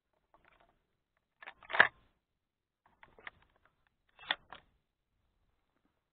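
Three shotgun shots from hunters, about a second to a second and a half apart. The first, about two seconds in, is the loudest.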